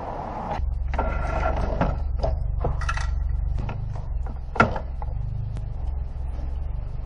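Clicks and knocks of a car radiator assembly being worked loose in the engine bay, over a steady low hum. A sharp knock about two-thirds of the way through is the loudest.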